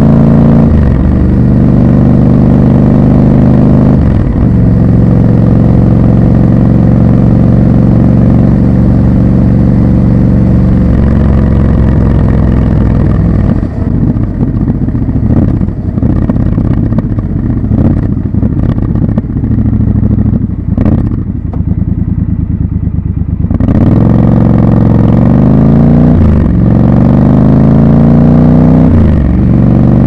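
Triumph Scrambler 1200 XC's 1200 cc parallel-twin engine on the move, heard raw from the rider's position. It pulls steadily with short breaks at upshifts, then runs quieter and uneven off the throttle for about ten seconds. Near the end it accelerates again with rising pitch and further upshifts.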